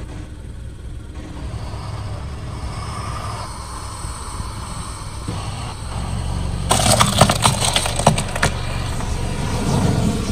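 Car tyre rolling slowly with a low rumble, then crunching over something brittle: a rapid run of sharp cracks and snaps lasting about two seconds, starting a little past the middle.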